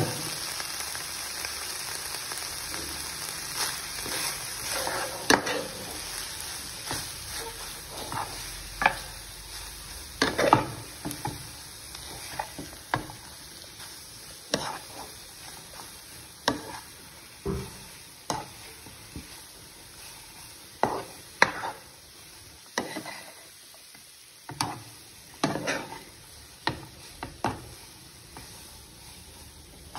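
Noodles, vegetables and chicken stir-frying in a non-stick frying pan: a steady sizzle that slowly fades. A spatula scrapes and knocks against the pan at irregular intervals, more often in the second half.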